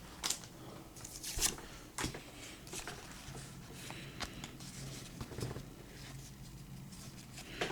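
Trading cards and a foil booster-pack wrapper being handled: faint scattered rustles and soft clicks, one every second or so, as the cards are pulled out and sorted.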